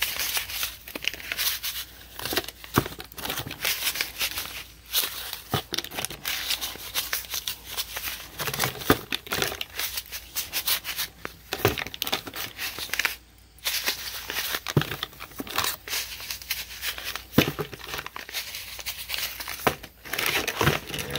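Zipped plastic bag of paydirt being shaken and kneaded to mix it: a steady run of plastic crinkling and rustling with small crackles of the dirt shifting inside, pausing briefly about thirteen seconds in.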